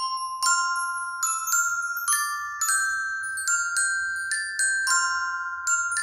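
A Google Pixel 3a's preloaded ringtone playing from the phone's speaker: a bell-like melody of struck, chiming notes, about two to three a second.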